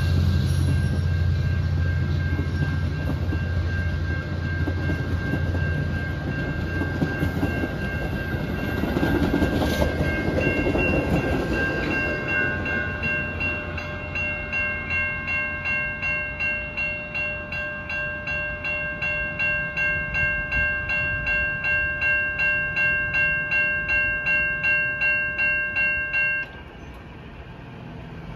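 Train rumbling past and fading, then a railroad bell ringing steadily about twice a second, growing louder before cutting off suddenly near the end.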